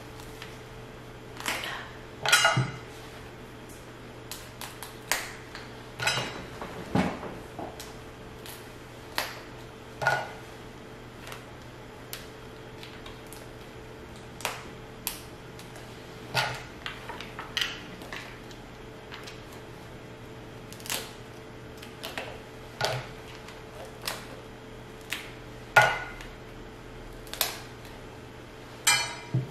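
King crab legs being cracked and eaten, with dishes and utensils clinking: irregular sharp clicks and cracks every second or two, over a faint steady hum.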